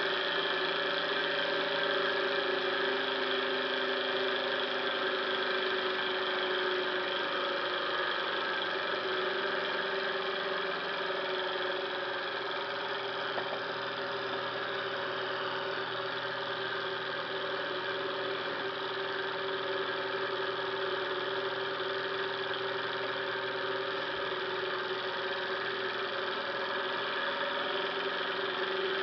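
Twin-cylinder gamma-type Stirling engine running at high speed under spirit-burner heat: a steady mechanical whir from its spinning flywheels, crank and ball bearings, with several steady hum tones. It runs slightly quieter in the middle and picks back up toward the end.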